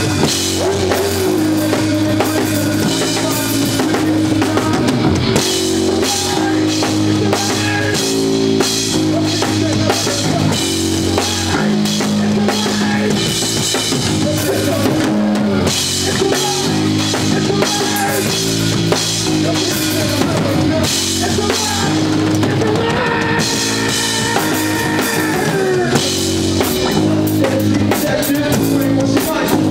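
Live band playing rock music, the drum kit to the fore with steady kick drum and cymbal hits over held bass and electric guitar notes.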